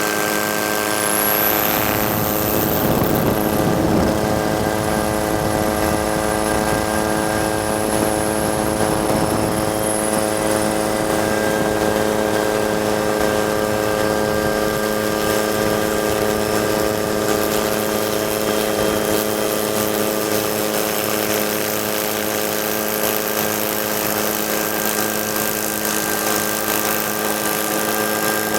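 Filming helicopter running steadily: a constant whine of several steady tones over a hiss, with a brief surge of rushing noise about three seconds in.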